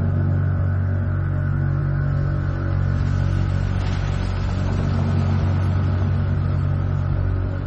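A van's engine idling, a steady low drone.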